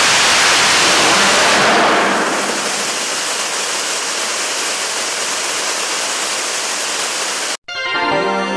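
Korean launch vehicle's 7-ton-class liquid rocket engine firing on the test stand with a steady rushing roar. The roar drops off about two seconds in as the engine shuts down at the end of its 320-second burn, leaving a steady hiss of vapour streaming from the nozzle. The sound cuts off abruptly near the end and music begins.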